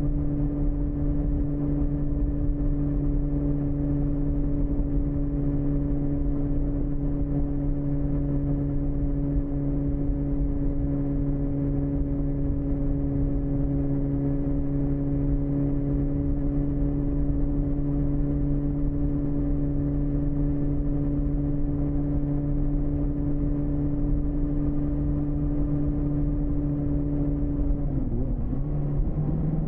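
BMW S1000RR inline-four engine with an Akrapovic shorty exhaust running at steady cruising revs, heard from onboard the bike. Near the end the engine note briefly dips, then comes back.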